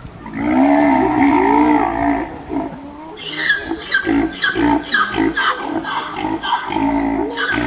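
A large animal calling loudly: one long call, then a run of shorter calls about twice a second.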